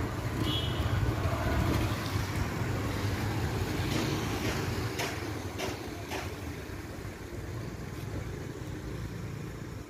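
Road traffic: a vehicle engine's low rumble that slowly fades, with a few faint clicks in the middle.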